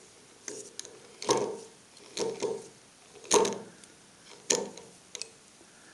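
Crawford Collets Trugrip collet chuck worked by its key in the side socket: irregular metallic clicks and knocks, about eight of them, as the key turns the internal thread at the back of the chuck.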